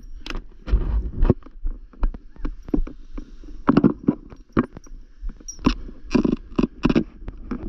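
Irregular rustling and knocking as a landed parachute canopy and its lines and risers are handled and gathered up on grass, a string of short uneven handling noises with a low rumble underneath.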